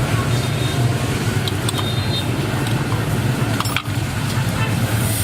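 A steady low motor hum, with a few light clicks and brief high metallic ticks over it.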